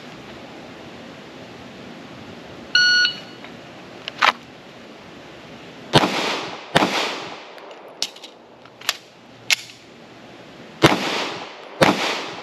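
Shot timer's start beep, then a 9mm Glock 19 pistol fired in two pairs, two quick shots, a pause with a few softer clicks during a magazine reload, then two more shots, each with a short echo off the berm. The last shot stops the timer at 9.08 seconds.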